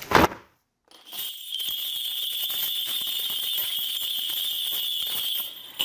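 A cluster of shaman's ritual bells shaken rapidly and continuously, a steady bright jingling that starts about a second in after a brief knock and a moment of silence, and stops just before speech resumes.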